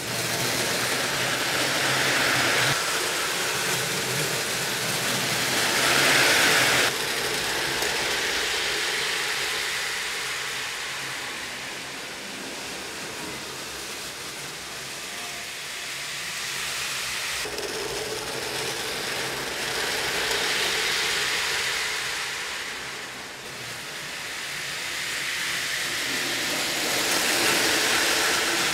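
Custom HO slot-car big rigs pulling trains of trailers along plastic slot track: small electric motors whirring and wheels rolling on the track. The sound swells as the trucks pass close and fades as they move off, with a few abrupt changes.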